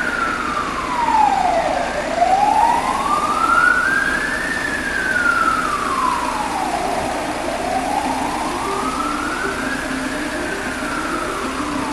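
Emergency-vehicle siren wailing in slow sweeps, falling and rising about every five seconds, over the hum of congested city traffic.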